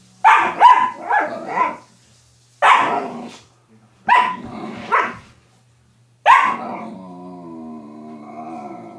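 Belgian Malinois puppy barking: about seven short barks in clusters, the last one drawn out into a long wavering whine over the final two seconds.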